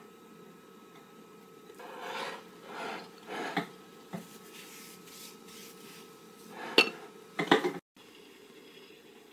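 Ceramic dishes being handled: three soft scraping or rubbing sounds, then a sharp clink about two-thirds of the way in and a quick double clink just after. The sound cuts off suddenly.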